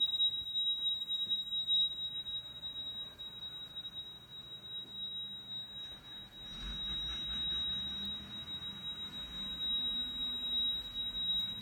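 A steady, unbroken high-pitched electronic alarm tone sounds while mains power is off, the trouble warning of a power failure. About halfway through a low rumble comes in, the standby generator starting up.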